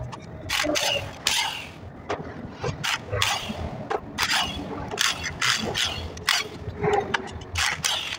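Metal tools and compressor parts clicking, clinking and scraping in irregular strokes as a chiller compressor is dismantled.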